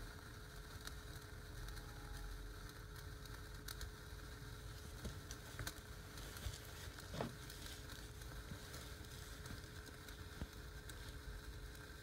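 Small indoor-firework spark fountains burning, a faint fizzing with scattered light crackles over a low steady rumble and hum. A short falling tone about seven seconds in.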